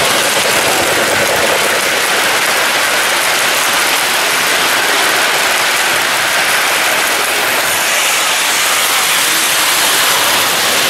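O-gauge three-rail model steam locomotive and freight train running past on sectional track, a steady mechanical rattle of wheels and motor.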